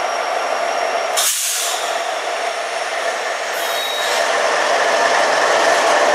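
CN freight train rolling past: a steady rumble of locomotive engines and wheels on the rails. About a second in comes a short, sharp burst of hissing air, and a fainter hiss with a thin whistle follows near four seconds in.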